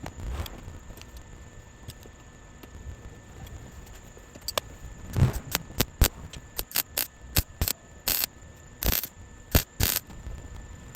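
Welder arc crackling in short, irregular bursts as patch metal is tack-welded into a car's transmission tunnel, starting about five seconds in, with a faint steady hum underneath.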